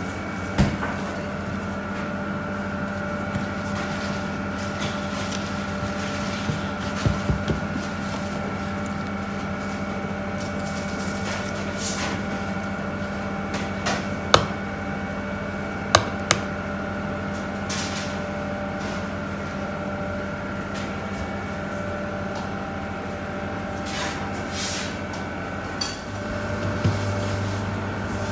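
Steady hum of bakery kitchen machinery, with a few tones held throughout, and now and then a sharp click or knock as a spatula, plastic tubs and a scale are handled on a stainless steel worktable. A deeper hum joins near the end.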